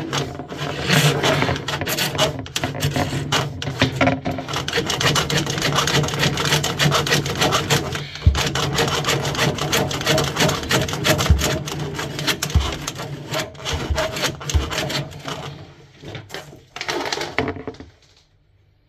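Coiled steel drain snake cable being fed and turned down a blocked PVC kitchen waste pipe, rasping and scraping against the pipe with many sharp clicks. The scraping thins out and stops near the end.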